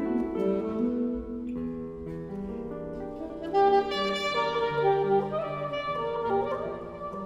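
Alto saxophone playing a line of held, changing notes over a chamber accompaniment of string quartet and guitar, with a brief louder swell about halfway through.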